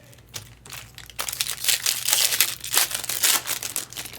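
Foil wrapper of a baseball card pack being torn open and crinkled: a dense crackling rustle for about two and a half seconds, after a couple of small clicks.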